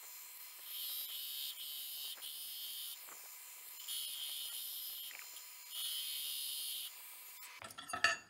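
Belt grinder grinding a Damascus steel knife blank: the blade is pressed to the running belt in passes about a second long, each one a burst of high hiss, over a faint steady tone.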